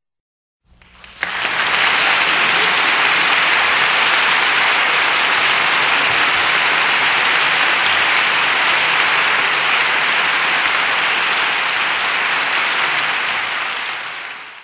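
Audience applauding: the clapping starts a little under a second in, swells quickly to a steady, dense applause, and fades away near the end.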